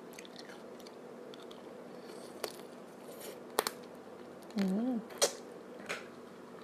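A person chewing and biting food with a few sharp crunches, and a short hummed "mm" about four and a half seconds in.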